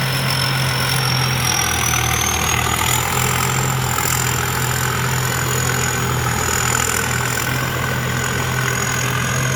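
Somboonpattana combine harvester with a 260 hp engine running steadily, with a high whine that rises slightly about two seconds in and then holds.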